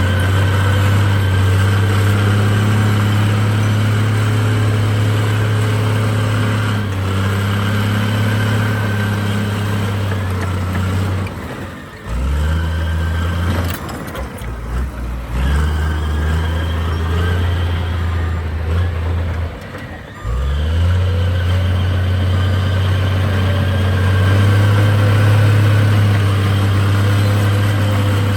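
Heavy earthmoving machine's diesel engine running steadily under load. Its note drops away briefly about twelve seconds in and again about twenty seconds in, then rises back up each time.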